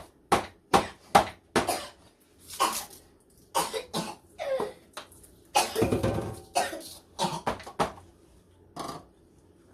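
A person coughing in several fits: a quick run of short sharp coughs at first, then longer bouts, and a last cough near the end.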